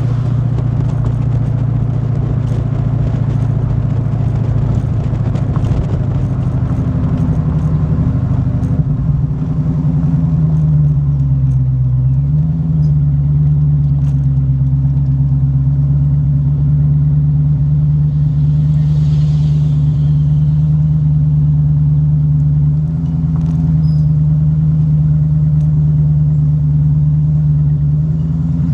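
Exhaust of a Dodge Charger Hellcat's supercharged 6.2-litre HEMI V8 running at a steady cruise as a low drone. The pitch shifts up slightly about ten to twelve seconds in, then holds level.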